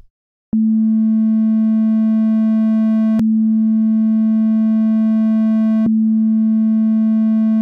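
A synthesized sine wave crossfading linearly into a triangle wave at the same low pitch, from an LMMS TripleOscillator. The steady tone grows gradually brighter and buzzier as the triangle's overtones fade in, then snaps back to the pure sine with a click, twice, at about 2.7-second intervals. Its loudness stays constant through the fade.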